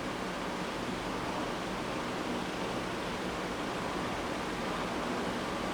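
Steady, even hiss of room background noise, with no other sound.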